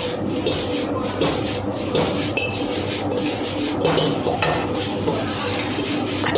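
A metal ladle scrapes and knocks against a wok while noodles are stir-fried and tossed, in a quick, irregular run of strokes. A steady low hum runs underneath.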